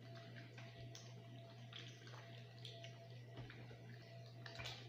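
Faint wet squishing and smacking of bare hands massaging spice-marinated raw chicken on a baking tray, in short irregular squelches with a louder one near the end, over a steady low hum.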